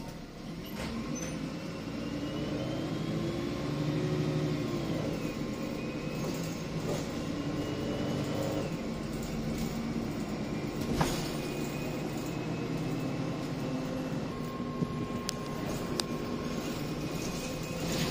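MAN 18.240 bus engine and automatic gearbox heard from inside the saloon, accelerating: the note rises and drops at an upchange about four and a half seconds in, rises again and changes up at about eight and a half seconds, then runs steadily. A single sharp knock sounds about eleven seconds in.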